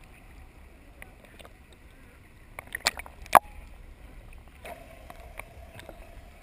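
Sea water lapping and sloshing against a camera's waterproof housing at the surface, with scattered sharp clicks, two loud ones near the middle. A faint steady hum joins about two-thirds of the way through.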